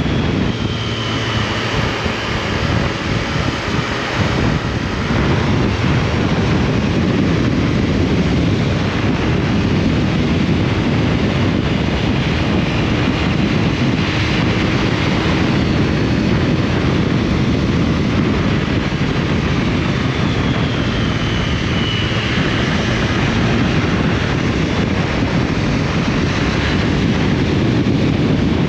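Onboard sound of a Triumph Tiger Sport 660's three-cylinder engine under way, its note rising and falling with the throttle, mixed with steady wind rush on the helmet or camera microphone.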